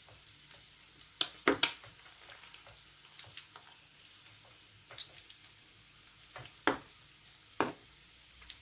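Chicken pieces frying in hot oil in a pan, browning after their juices have cooked off: a faint steady sizzle. A utensil knocks against the pan as the pieces are turned, with a cluster of sharp knocks a little over a second in and two more near the end.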